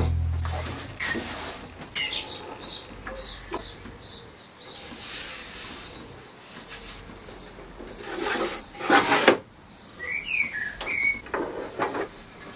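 A wooden drawer and the hinged fall front of an old walnut writing bureau being opened and closed: wood sliding, with knocks and clunks, and a few short high chirps. The last of the intro music fades out in the first second.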